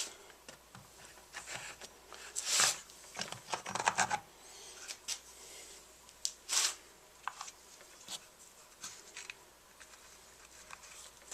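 Scattered clicks, light knocks and scrapes of a chainsaw's bar, chain and side cover being handled and fitted, metal and plastic parts clicking together. The loudest come about two and a half, four and six and a half seconds in.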